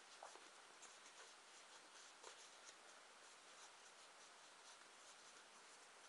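Faint rustling and scratching of a strip of plain cardboard being rolled tightly between the fingers, a scatter of small dry ticks over a low hiss.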